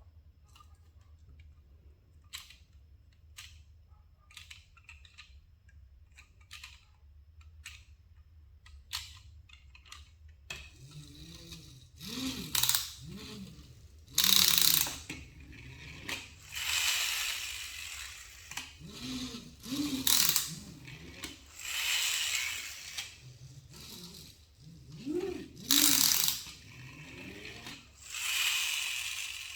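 Toys and packaging being handled: scattered small clicks and knocks, then from about a third of the way in a series of loud rasping, rustling scrapes, each about a second long.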